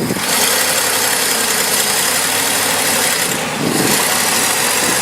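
A vehicle engine running steadily under a constant loud hiss, which eases briefly about three and a half seconds in.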